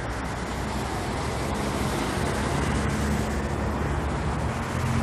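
Steady road traffic noise on a busy multi-lane road, with a low engine rumble underneath.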